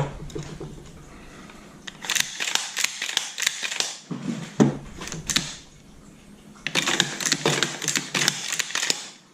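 Metal parts of a Franchi Affinity 12-gauge semi-auto shotgun's bolt clicking and rattling as they are handled and oiled during reassembly. There is a sharp knock at the start, then two runs of rapid clicking, each lasting a couple of seconds.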